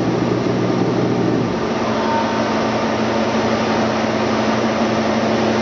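Blanchard 26HD-48 rotary surface grinder running, its spindle and table drives giving a loud, steady machine hum. About a second and a half in, the hum changes and a new steady tone takes over.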